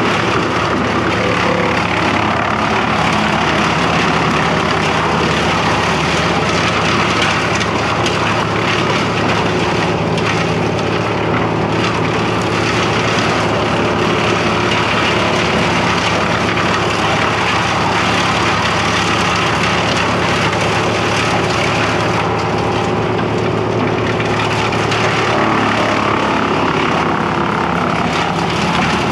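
Trailer-mounted brush chipper running steadily at working speed, its engine's drone under the noise of branches being fed through and chipped.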